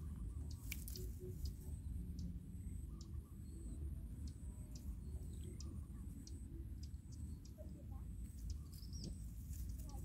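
Outdoor ambience with a steady low rumble, scattered small clicks and rustles from a baby macaque climbing a leafy shrub, and a few faint bird chirps, one about four seconds in and others near the end.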